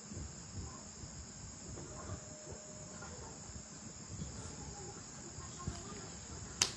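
Crickets chirping faintly and steadily in the background, with a short sharp click near the end.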